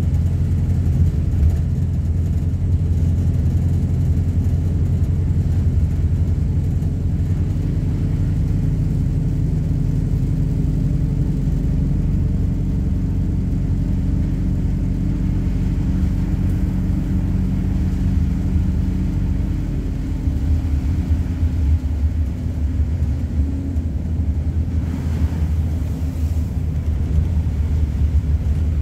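Inside the cabin of a MAZ-226 bus on the move: steady low engine drone and road rumble. About twenty seconds in the engine's humming tone fades away and the rumble becomes rougher and more uneven.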